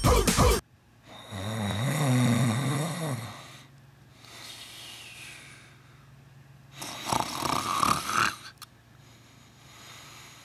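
Sleeping Shar-Pei–beagle–hound mix puppy snoring: a long, wavering snore from about a second in, softer breathing, then another, noisier snore about seven seconds in. The end of a pop song cuts off just at the start.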